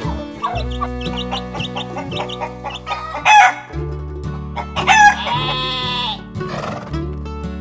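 Chicken clucks and a loud rooster crow about three seconds in, played as sound effects over background music. A second loud animal call follows a couple of seconds later.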